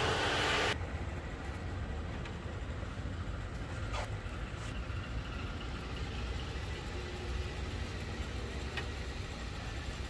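GMC Denali engine idling, a steady low rumble, with a sharp click about four seconds in. A louder hiss opens the clip and cuts off abruptly within the first second.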